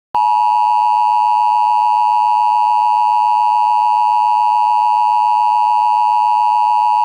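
Emergency alert attention tone: a single steady, loud electronic tone held without a break, the signal that announces an emergency alert message.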